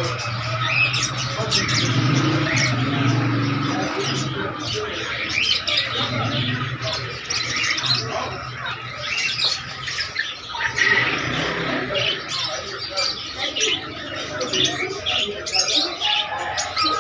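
Many birds chirping and squawking together, a dense, overlapping chatter of short calls with no letup.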